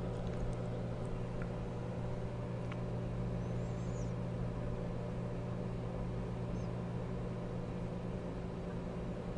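Steady low hum with a faint hiss underneath: the background noise of the recording during a pause in the narration.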